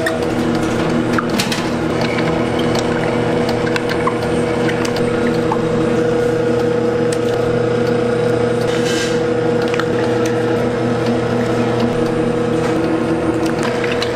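Steady motor hum of a kitchen machine running, with scattered clicks and knocks over it.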